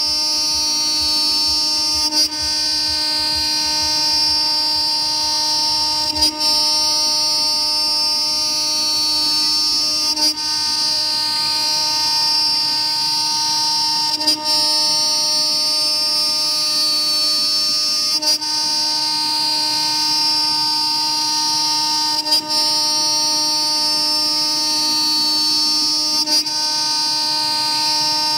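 A 2.2 kW CNC router spindle is milling a pocket in 20 mm aluminium plate with a small end mill. It makes a steady high whine over a lower cutting tone, with a short break about every four seconds.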